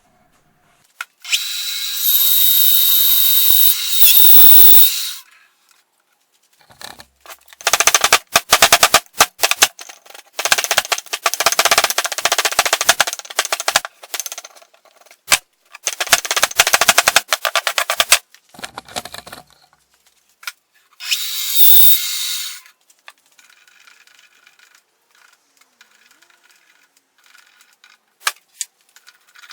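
Woodworking power machine cutting apple wood in bursts: two steady stretches with a high whine, between them a long run of dense rapid rattling and clatter.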